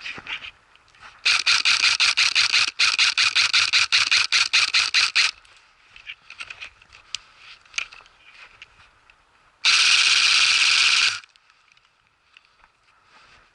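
Airsoft electric rifle firing on full auto: a rapid burst of about four seconds with a brief break near the start, then a second burst of about a second and a half near the end.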